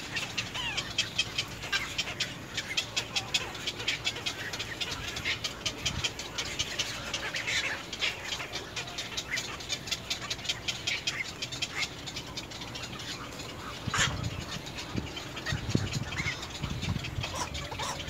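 Birds chattering: a fast, continuous run of clicks mixed with short chirps. Near the end comes a sharp knock, followed by a few seconds of low rumbling.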